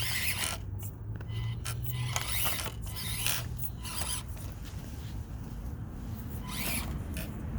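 Axial SCX24 micro RC crawlers' small electric motors and geared drivetrains running at crawling speed, with irregular clicks and scrapes from the plastic bodies and tyres working over rough rock.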